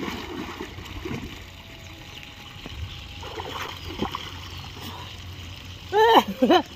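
A person dives headfirst into deep water in a plastic-lined farm tank with a splash. He then splashes about while swimming, and near the end a voice calls out briefly.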